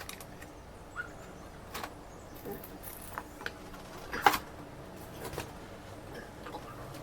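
Scattered small clicks and taps of a hand tool working at the screws and case of an iMac, with one sharper knock about four seconds in.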